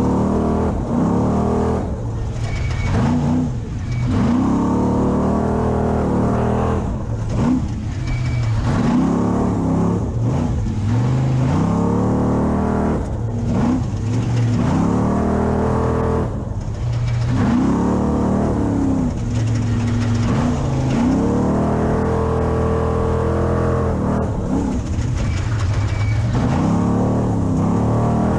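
6100 Spec Trophy Truck's V8 engine revving up and dropping back over and over as the truck accelerates and lifts, heard from onboard over steady running noise.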